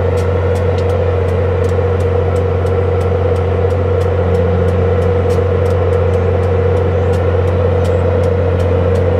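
EMD F40PH diesel locomotive's 16-cylinder two-stroke 645 prime mover running at a steady, unchanging speed while the locomotive stands, a loud even drone. A faint ticking repeats about three or four times a second over it.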